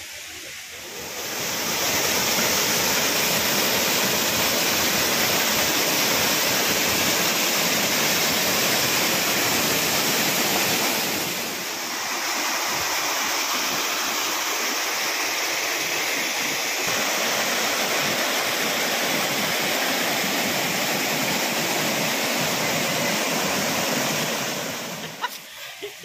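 Waterfall: water falling and splashing in a loud, steady rush of noise. It swells up about a second in, dips briefly about halfway, then carries on until near the end.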